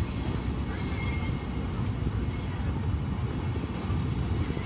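Passenger coaches of a Humsafar train rolling past a platform, a steady low rumble of wheels on the track.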